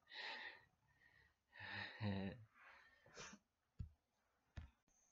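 Faint breathy sounds from a person, three soft puffs like sighs or breaths, followed by two short sharp clicks.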